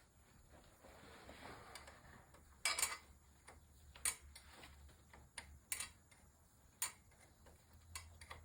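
Faint, irregular sharp metallic clicks and taps, roughly one a second, from hand tools working on 10 mm bolts, over a low steady hum.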